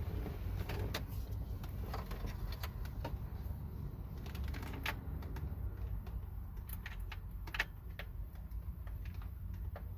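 Irregular light clicks and taps of plastic wiring connectors and a car-stereo head unit being handled in the dash, over a steady low rumble.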